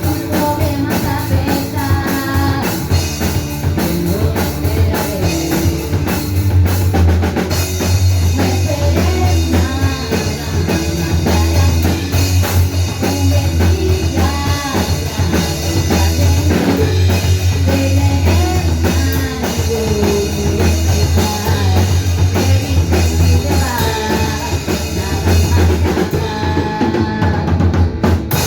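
Rock band playing live: a full drum kit drives the song over a heavy bass line, with electric guitar. Near the end the high end thins out.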